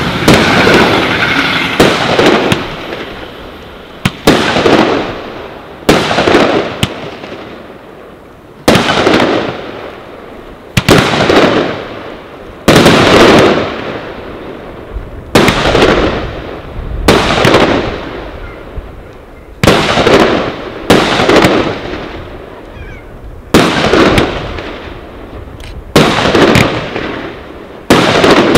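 Aerial fireworks bursting one after another, a sharp bang about every two seconds, each followed by a long rolling echo.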